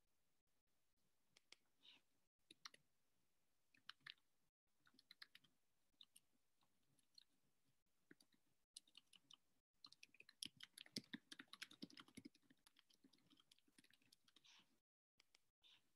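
Faint computer keyboard typing and mouse clicks, scattered at first and coming in a quick run about ten to twelve seconds in.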